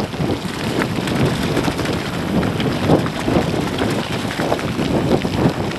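Mountain bike riding over a loose, rocky gravel track: the tyres crunch on stones and the bike rattles in a dense run of small knocks, with wind buffeting the microphone.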